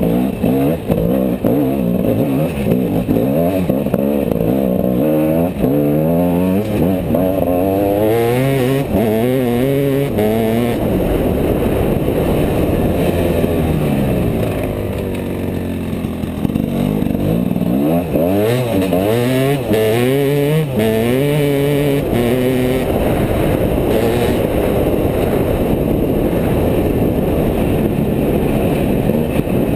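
Gas Gas EC enduro motorcycle engine heard from the rider's seat, revving up and falling back over and over as the throttle is worked over rough grass. It holds steadier for a few seconds in the middle and again near the end.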